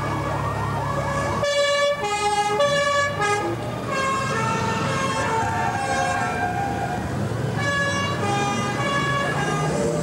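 Honda Gold Wing touring motorcycles passing slowly, their engines a low hum under a loud tune of stepped, held notes. Rising, siren-like wails sound in the first second or so.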